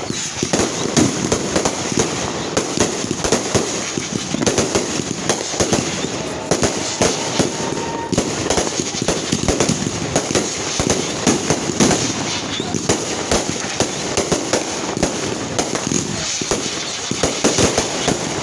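Fireworks going off in rapid, continuous succession: a dense barrage of sharp bangs and crackling with no pause.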